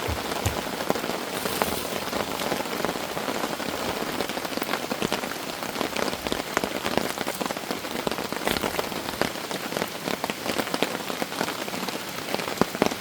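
Heavy downpour from a sudden summer shower, an even hiss of rain with many individual drops striking sharply close by.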